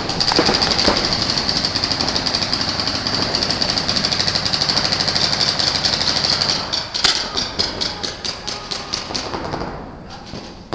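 Paintball markers firing in rapid, dense volleys, many shots a second, slowing to scattered single shots about seven seconds in and dying away near the end.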